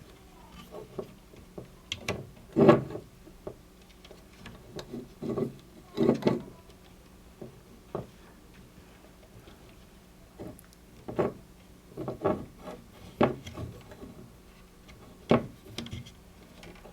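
Handling noise from an opened radio transceiver and its coax cables: scattered knocks, taps and rubbing, the loudest a couple of seconds in and around six seconds, with more in the second half, over a faint steady hum.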